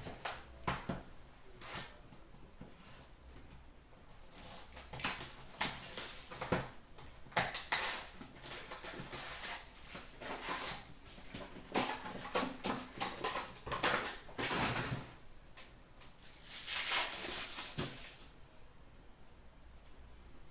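A trading-card box and its wrapped packs being opened and handled by hand: crinkly rustling and tearing of wrapper and cardboard in irregular spells, with a longer rustle near the end.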